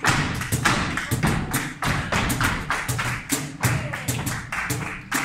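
Flamenco palmas (rhythmic hand clapping) and a dancer's shoe strikes on a wooden floor, keeping a bulerías rhythm in sharp, uneven strokes, over flamenco music.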